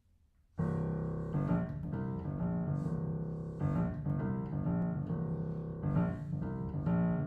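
Schimmel upright piano playing a repeating pattern of chords and single notes, starting about half a second in.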